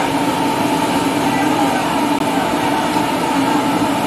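Commercial gas wok burner running with a steady roar.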